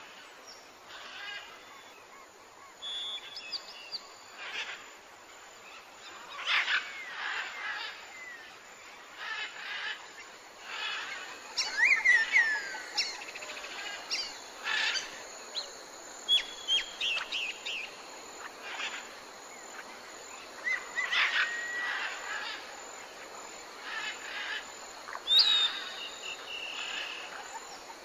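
Several birds calling: short chirps and whistles, some sliding down in pitch, scattered irregularly over a steady background hiss.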